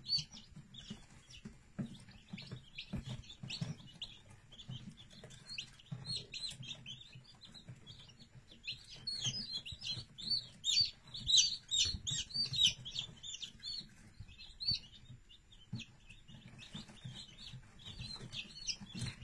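Young chick peeping: a steady run of short, high, falling peeps, several a second, growing louder and quicker in the middle.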